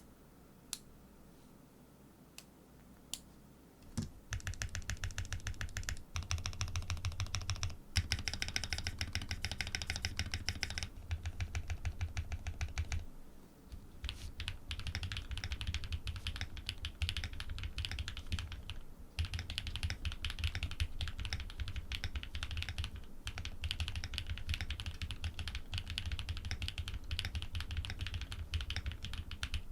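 Think6.5 v2 custom mechanical keyboard with Cow switches, PBT keycaps and an FR4 plate being typed on. A few single keypresses come first, then fast continuous typing from about four seconds in, with a brief pause near the middle.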